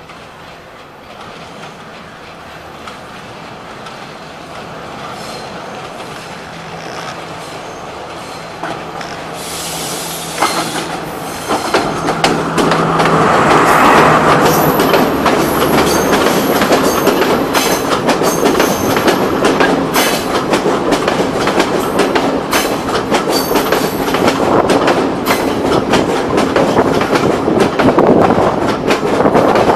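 Class S14 diesel multiple unit approaching and passing close by. Its engine hum grows steadily louder for about the first ten seconds. Then, as the coaches go by, the wheels clatter rapidly over the rail joints in a clickety-clack, with a thin high wheel squeal at times.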